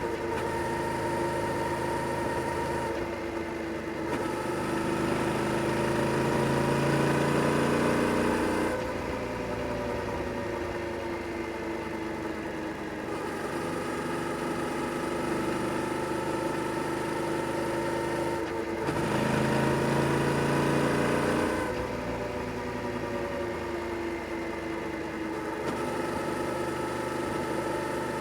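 Yamaha Tracer 7 GT's 689 cc parallel-twin engine on its stock exhaust, running under way. It pulls harder twice, each time for a few seconds, then falls back as the throttle closes, with steady running in between.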